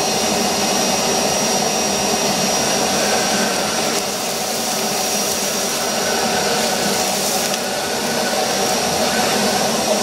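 Kärcher WD 2 shop vacuum running steadily with a thin high whine over its motor noise, its hose nozzle sucking up garden soil, gravel and workshop floor grit.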